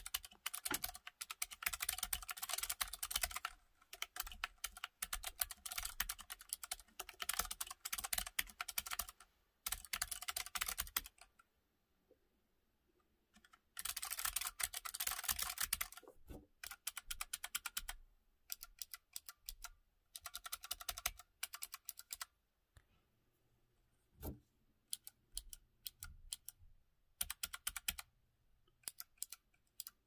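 Keychron K3 low-profile keyboard with Keychron optical blue (clicky) switches being typed on: fast runs of sharp key clicks, a pause of about two seconds roughly eleven seconds in, then another fast run. In the second half the presses come sparser and more separate, with one duller thump in the middle of that stretch.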